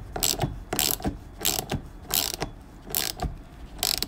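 Ratchet spanner clicking in a run of short strokes, about six in a few seconds, as a tight threaded jet part is driven into a Bing carburettor body.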